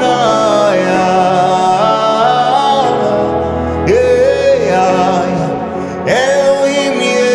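A man sings a slow gospel worship song, holding long notes and sliding up into notes, over sustained electronic keyboard chords.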